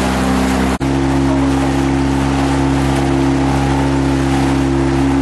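Small tour boat's engine running steadily with an even hum. A split-second dropout comes about a second in, after which the hum sits at a slightly different pitch.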